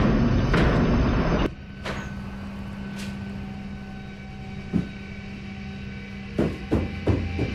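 A loud rushing drone cuts off suddenly about a second and a half in, leaving a steady low electrical hum. Near the end comes a quick cluster of soft thumps: footsteps coming down carpeted stairs.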